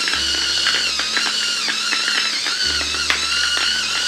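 Electric salt grinder running, a steady motor whir with fine crackling as it grinds coarse salt crystals.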